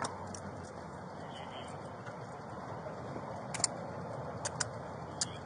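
Steady outdoor background noise picked up by a police body camera's microphone, with a few short sharp clicks in the second half, two of them in quick pairs.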